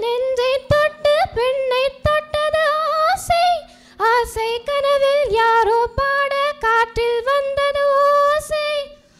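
A teenage girl singing a Tamil song solo into a microphone without accompaniment. She moves through sliding phrases into longer held notes, over a faint steady electrical hum.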